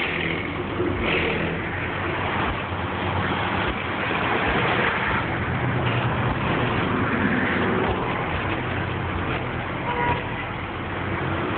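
Car engine idling steadily, under a constant outdoor noise.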